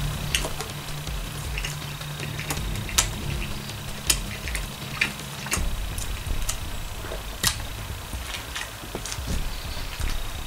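Close-up chewing of a crispy fried-chicken sandwich: scattered wet mouth clicks and crunches every second or so, over a low steady hum.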